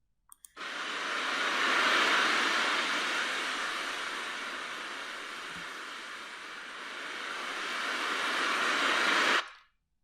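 Recorded sea waves played back: a steady rush of surf that swells, eases off and swells again, then cuts off suddenly.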